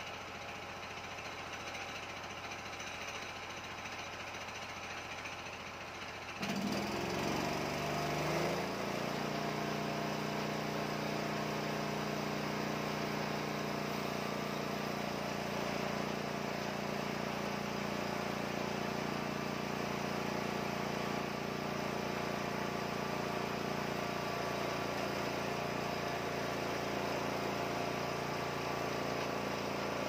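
Engine of a homemade band sawmill running steadily. About six seconds in it gets louder and briefly wavers in pitch before settling into a steady, higher, louder run as the band blade cuts along a red box log.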